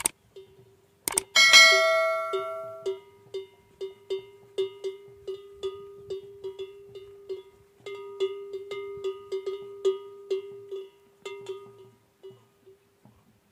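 Metal bell hanging from a camel's neck clanking as the camel moves its head while browsing. One loud ringing strike about a second in, then quick irregular clanks that stop shortly before the end.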